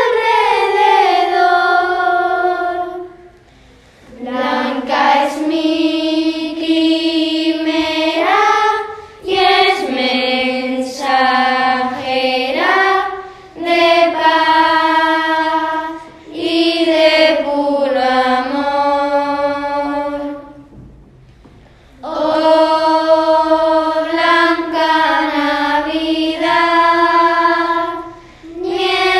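Children's choir singing a Christmas carol in long, held phrases, with short pauses between them.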